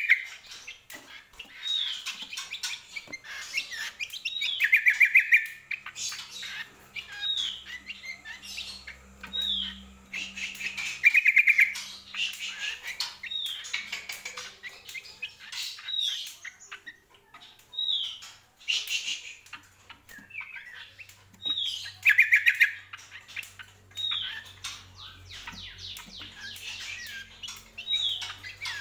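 A caged cucak kombo singing vigorously (gacor): short high notes that slide down, repeated about every second and a half, broken by louder fast trilling runs three times.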